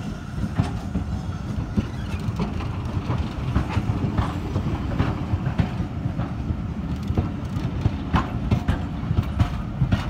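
A train rolling past on a heritage railway: a steady low rumble with repeated sharp clicks from wheels running over rail joints.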